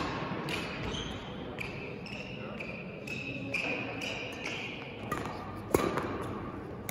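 Badminton rally sounds: rackets striking the shuttlecock with sharp cracks, one much louder hit about three-quarters of the way through, and sneakers briefly squeaking on the court floor several times.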